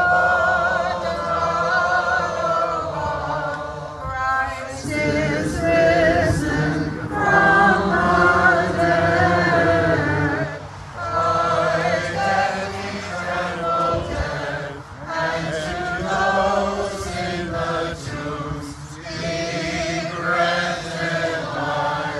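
A group of men and women singing Byzantine liturgical chant unaccompanied, in phrases with short breaths between them.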